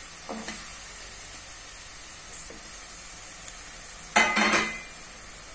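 Spiced tamarind mixture sizzling gently in a metal pan as carrot slices are added; about four seconds in, a slotted metal spatula clatters and scrapes against the pan for about half a second with a brief metallic ring.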